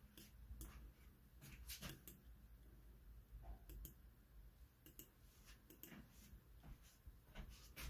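Faint computer-mouse clicks, about a dozen at irregular intervals, over near silence.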